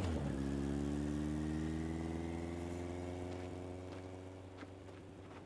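Police motorcycle engine pulling away, its pitch rising slightly as it gathers speed and the sound fading steadily into the distance.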